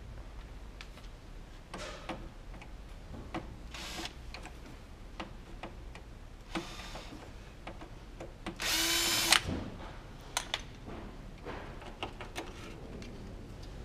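A cordless drill-driver runs in one short burst of just under a second, about eight and a half seconds in, at a steady pitch. Scattered light clicks and knocks of parts being handled come before and after it.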